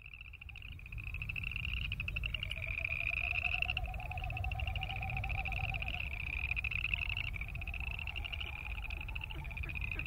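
A chorus of boreal chorus frogs: overlapping pulsed trills, each a second or two long, one after another, fading in over the first second. A lower pulsing call runs beneath them for a few seconds in the first half, over a steady low rumble.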